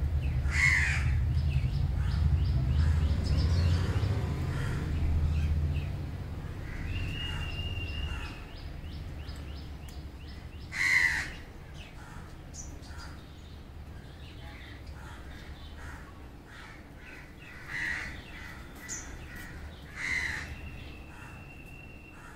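Crows cawing: single loud caws about a second in, near the middle, and twice near the end, over a low rumble that fades after the first few seconds.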